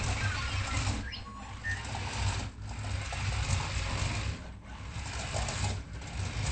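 Electric drive motors and gears of a voice-controlled toy R2-D2 robot whirring steadily as it drives across the floor, with short breaks about two and a half, four and a half and six seconds in.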